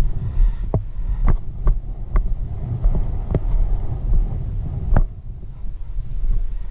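Wind buffeting the microphone as a steady low rumble, with about six irregular sharp knocks scattered through it.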